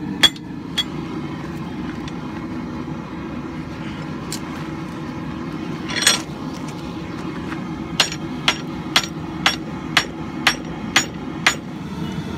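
Hand hammer blows on hot steel at the anvil: a couple of sharp strikes at the start, a lone heavier blow about halfway, then a steady run of about eight blows, two a second, near the end.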